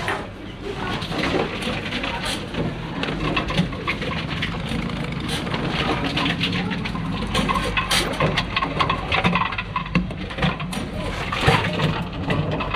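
Reverse vending machine taking in plastic deposit bottles: a steady motor hum under repeated clatter and knocks as the bottles go in.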